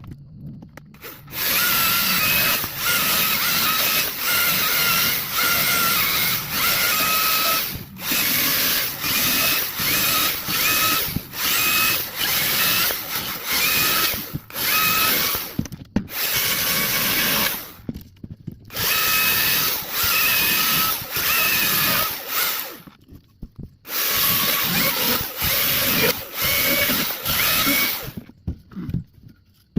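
Dewalt 60-volt top-handle battery chainsaw cutting through a log, its electric motor whining under load as the chain chews into the wood. The cutting runs in long stretches broken by several short pauses, and it stops shortly before the end.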